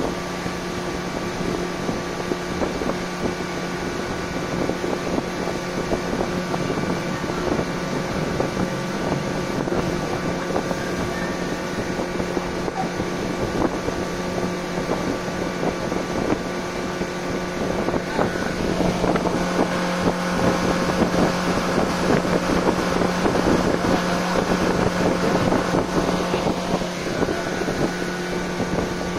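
Motorboat engine running at a steady speed while the boat is underway, with wind on the microphone and water rushing past the hull. The wind and water noise grows louder for a while past the middle.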